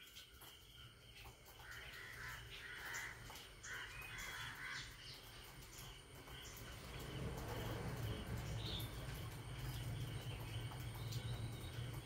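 A bird calling twice a couple of seconds in, each call lasting about a second. From about seven seconds a low rumble sets in and holds.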